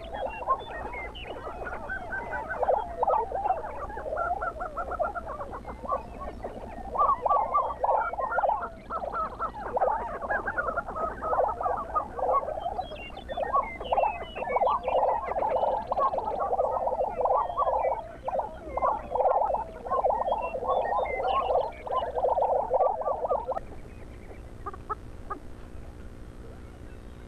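Male lesser prairie chickens calling on their lek: a dense chorus of many overlapping, rapid pulsed calls with higher chirps mixed in, dropping away about 23 seconds in.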